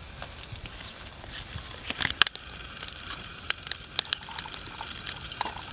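Dry grass catching fire in a heap of charcoal, giving irregular sharp crackles and pops that start about two seconds in.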